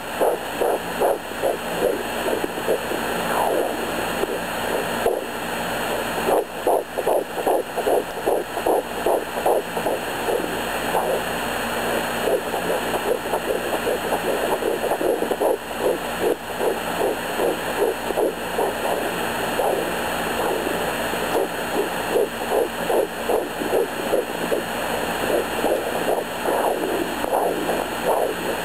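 Fetal heartbeat at 11 weeks of pregnancy picked up through a Sonoline B handheld fetal doppler: fast pulsing beats, nearly three a second, over a steady hiss.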